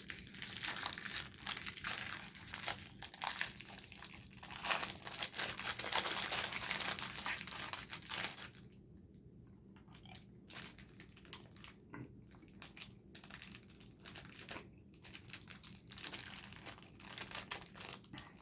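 Plastic candy packet crinkling and tearing open for about the first eight seconds, then quiet chewing with scattered small clicks and rustles.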